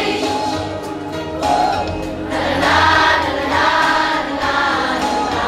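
A choir singing a song together, with sustained notes.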